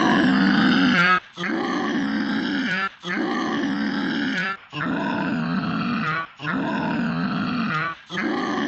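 An audio clip run through the 4ormulator voice-changer effect, giving a deep, growl-like distorted sound. The same short segment repeats about every 1.7 seconds with brief gaps between repeats.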